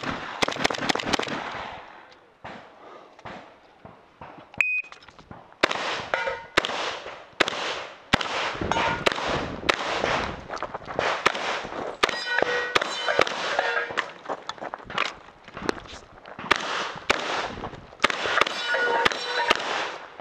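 Rapid fire from an AK-pattern magazine-fed semi-automatic shotgun, shot after shot, with steel targets clanging and ringing as they are hit. The firing pauses for about three seconds after the first two seconds, then resumes.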